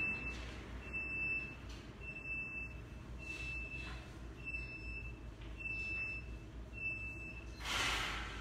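Electronic beeper sounding a single high tone in short beeps, about one a second. A brief burst of noise near the end.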